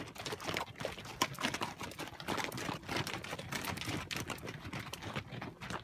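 Hooves of a string of saddle mules clopping and scuffing on a dusty, rocky trail: a run of irregular knocks from several animals walking past.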